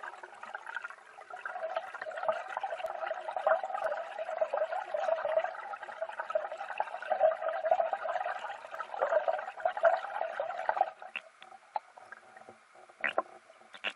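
Muffled underwater noise picked up by a submerged camera in a river: a dense crackling rush that stops about eleven seconds in, followed by a few sharp clicks.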